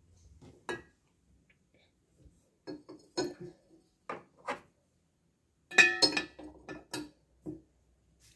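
Pebbles set down one after another into the bottom of a tall, empty glass cylinder vase: a series of knocks and clinks of stone on glass. The loudest cluster comes about six seconds in, with a brief ring of the glass.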